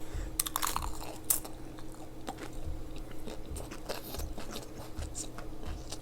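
Close-up sound of people chewing a mouthful of sushi: a few crisp crunching clicks in the first second or so, then softer wet mouth clicks and chewing at a steady rhythm.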